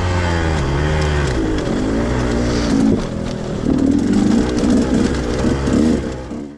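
Dirt bike engine revving up and down as the bike is ridden along a rocky trail, its pitch rising and falling constantly; it cuts off abruptly at the very end.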